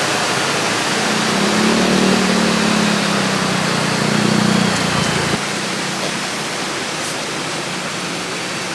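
Waterfall and river rapids rushing, a loud steady wash of water noise. A low steady hum rides over it from about a second in, and the sound changes abruptly and drops a little at about five seconds.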